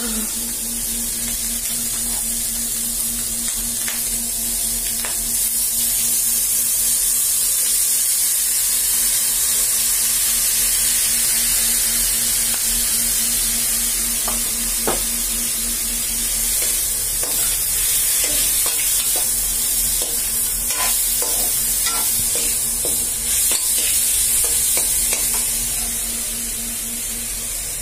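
Beef adobo frying in an aluminium wok, a steady sizzle, with a spatula stirring and scraping against the pan in scattered clicks.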